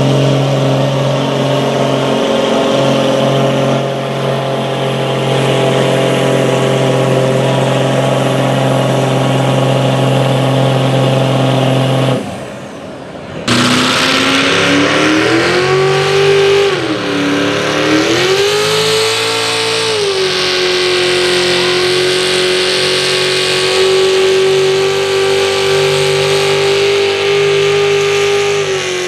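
A diesel pickup's engine running at steady high revs under load while pulling a sled. After a brief break, a second pickup truck's engine takes over, its revs dipping and rising twice before holding steady under load.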